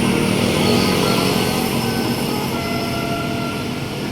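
A large vehicle, a bus, driving past with steady engine and road noise that slowly fades as it moves away.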